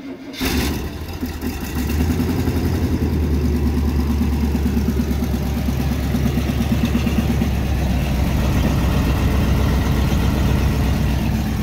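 1979 Chevrolet C10 pickup's carbureted engine firing up and settling into a steady idle about two seconds in, with a pulsing exhaust drone.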